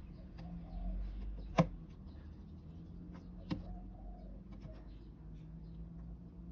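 Two sharp clicks about two seconds apart as jumper wires and leads are fitted into a breadboard circuit, over a faint steady hum.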